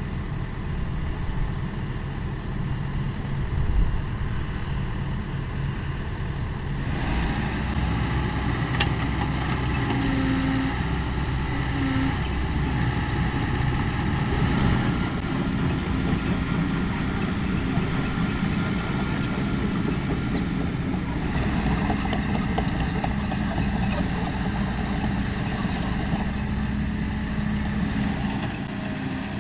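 Kobelco SK75 excavator's diesel engine running steadily, getting louder about seven seconds in as the machine works, with a knock a few seconds in.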